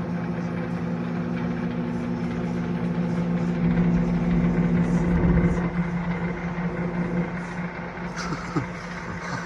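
Microwave oven running partway through a two-minute heating cycle, a steady electrical hum with a low rumble that swells and fades around four to five seconds in.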